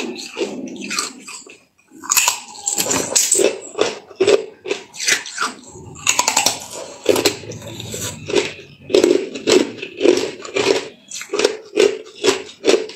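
Hard clear ice being bitten and chewed close up: many sharp crunches and cracks of ice breaking between the teeth, coming irregularly.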